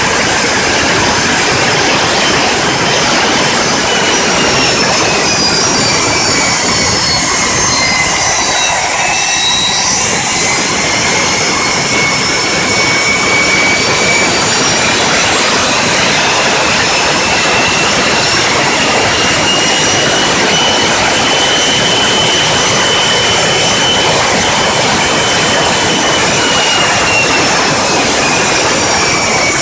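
Boeing 727's Pratt & Whitney JT8D turbofan engine running on the ground: a loud, steady jet rush with a whine on top. The whine falls over the first ten seconds or so, climbs again and falls once more near the end as the power is changed.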